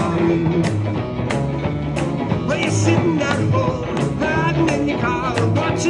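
Live band playing an instrumental stretch of a 12-bar blues: electric guitars and keyboard over a steady beat and bass line, with a bending, wavering lead line on top.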